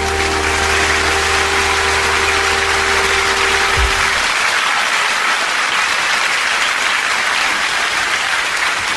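Live concert audience applauding at the end of a song, over the band's last held chord, which stops about four seconds in; the applause then goes on alone.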